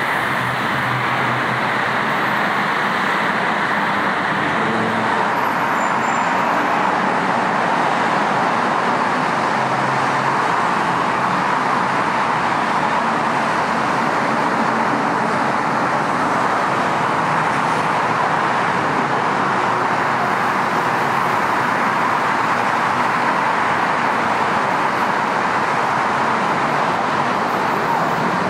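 Steady freeway traffic noise: a constant, even rush of passing cars and trucks with no single vehicle standing out.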